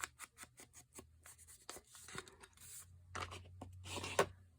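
Paper being handled and creased by hand: a run of light clicks and taps, with brief rustles of paper about two and three seconds in and again near the end.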